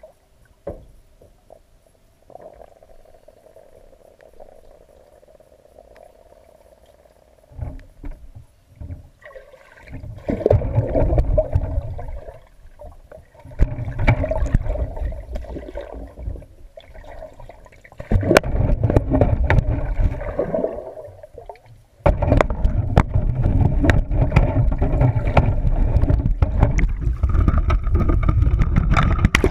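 Swimming-pool water sloshing and gurgling, muffled and heavy in the low end. It is quiet with a faint steady hum for about the first ten seconds, then comes in loud bouts of churning water that break off and return three times.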